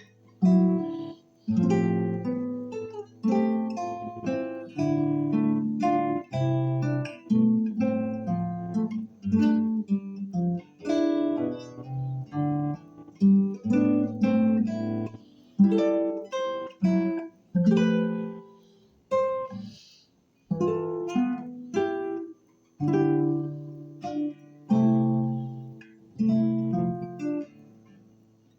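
Acoustic guitar played solo, plucking single notes and chords that ring and die away, with a few short pauses between phrases.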